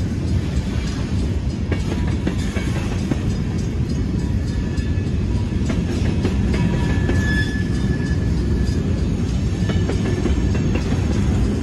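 Freight train's covered hopper cars rolling past on the rails: a steady low rumble with repeated clicks of wheels over the rail joints. A faint high wheel squeal rises about seven seconds in.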